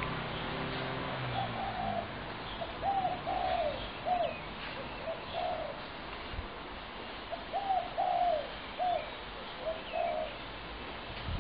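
Spotted doves cooing: short arched coos in repeated groups, with faint chirps from small birds above them.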